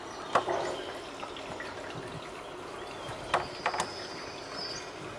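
Folded tissue wiping the inside of an acrylic terrarium panel: light rubbing with a few sharp taps, one about half a second in and two close together near the middle, over a faint steady trickle of water.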